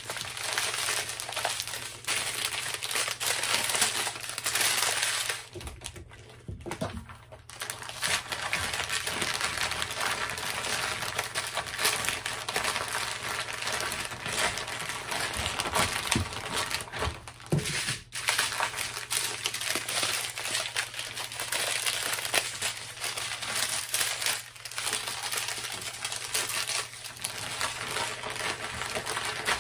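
Crinkling plastic as small packets of diamond-painting drills are handled and slipped into a Ziploc bag. It goes on nearly the whole time, easing off briefly about six seconds in.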